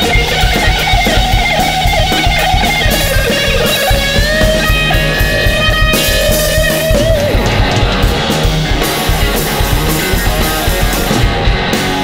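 Hollow-body electric guitar and drum kit playing an instrumental passage. Over steady drumming, the guitar holds sustained lead notes that bend in pitch, most clearly in the middle of the passage.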